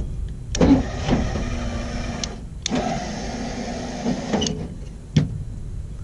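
Lippert electric stabilizer jack motor running in two stretches of about two seconds each, with a short break and sharp clicks in between as it is switched, while a hand-wired replacement switch is tested.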